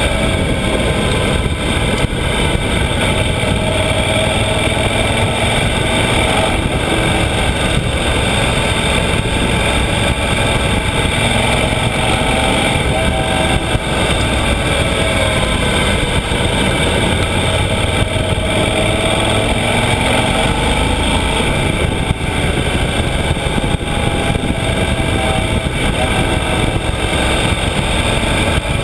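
Yamaha XT1200Z Super Ténéré's 1200 cc parallel-twin engine running under way, heard from the bike itself, its pitch wavering up and down through the bends, over a steady rush of wind and road noise.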